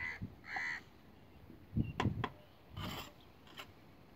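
A crow cawing twice, harsh and short, followed by a few sharp knocks and a brief scrape.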